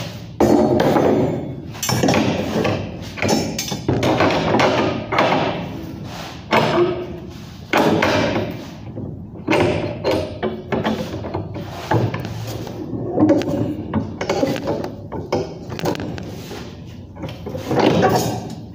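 Steel reinforcing bar being handled and bent by hand into a stirrup: a run of irregular metallic knocks, clanks and thuds.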